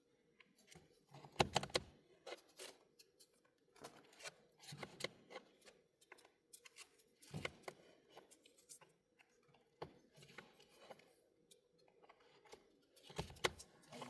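Scattered clicks, taps and rustles of small objects being handled, at an uneven pace, with a few louder knocks: about a second and a half in, around the middle, and just before the end.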